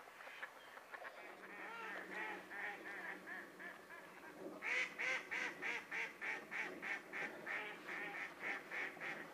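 Waterfowl calling in a long repeated series, about three calls a second, growing louder about halfway through.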